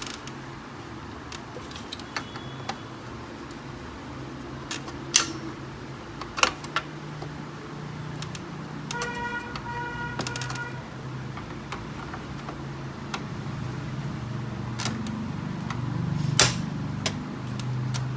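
Plastic printer parts clicking and knocking as they are unclipped and handled by hand, with a few sharp snaps, over a steady low hum. A brief two-part tone sounds near the middle.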